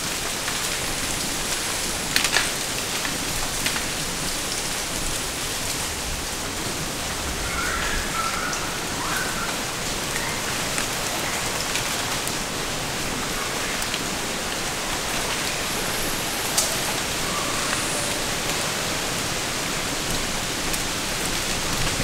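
Strong wind through forest trees: a steady rushing hiss of leaves, with a couple of sharp ticks.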